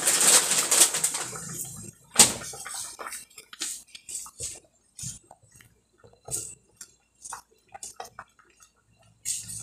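Slotted spoon knocking and scraping against a pot of boiling water as dry spaghetti is pushed down into it: one sharp knock about two seconds in, then scattered light clicks and taps. A rushing hiss fills the first two seconds and cuts off suddenly.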